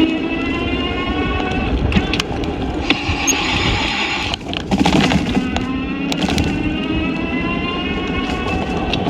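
Car driving, heard from inside: steady road and engine noise, with the engine note climbing as the car accelerates, dropping away about four seconds in, then climbing again. A few light clicks and knocks.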